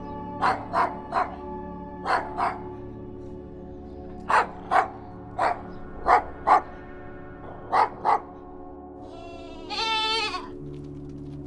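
Dog barking in short runs of two or three, about a dozen barks, over a steady ambient music drone. Near the end comes a single wavering bleat of about a second and a half.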